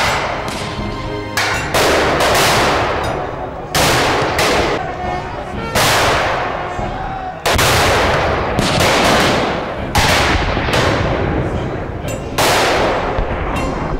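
Black-powder rifles fired in a ragged series of about a dozen shots at irregular intervals, each with a long echoing tail among the trees, over a low continuous rumble of battle noise.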